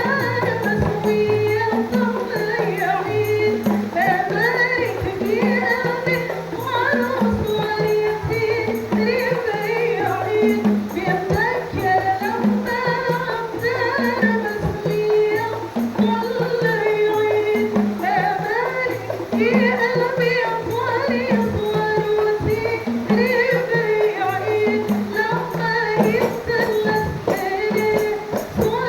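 Rebana ensemble playing: frame drums beat a steady repeating rhythm under a sung melody.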